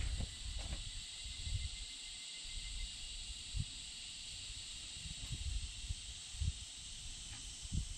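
Steady high-pitched hiss of insects, with a few dull low thumps scattered through.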